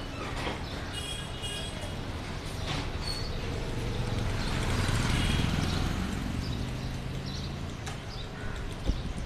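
Street traffic noise, with a motor vehicle passing: its low engine rumble swells to a peak about halfway and then fades. A few brief high chirps sound about a second in, and a sharp click near the end.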